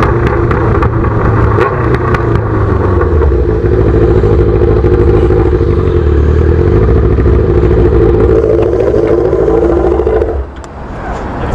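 Yamaha XJ6's inline-four engine with a straight-pipe exhaust (no muffler) running loudly with a steady note, then dropping off sharply about a second before the end.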